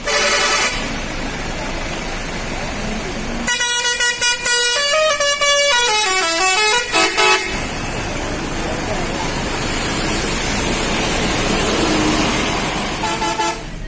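Indonesian bus 'telolet' musical horn playing a multi-note tune about three seconds in, several tones sounding together and stepping down in pitch over about four seconds. A short horn blast comes at the very start and more horn notes near the end, with voices and traffic noise between.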